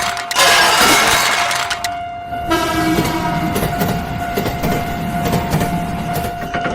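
Cartoon train sound effects: a train horn held on one steady note over the noise and clatter of a passing train, with a loud rush of noise in the first two seconds.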